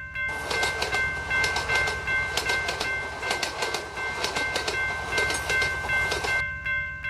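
A level-crossing warning signal rings as a set of steady high tones while a train passes. The train's wheels clatter over the rail joints in an irregular run of clicks over a low rumble. The clatter stops about six seconds in, while the crossing signal keeps sounding.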